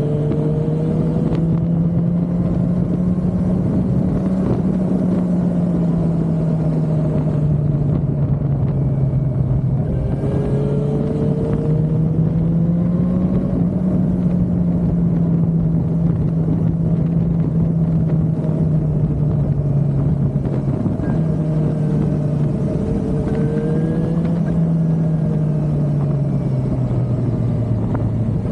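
Suzuki motorcycle engine running under way, its pitch rising and falling gently with the throttle, over a continuous rush of wind and road noise.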